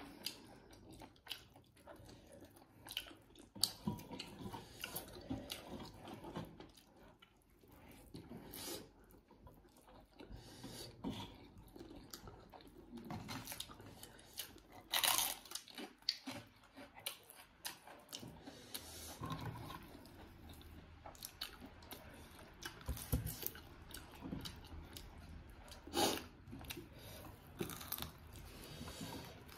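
Close-up eating sounds: irregular chewing, biting and tearing as chicken and fried fish are eaten by hand, with scattered crunches and two sharper, louder crunches or clicks about halfway through and near the end.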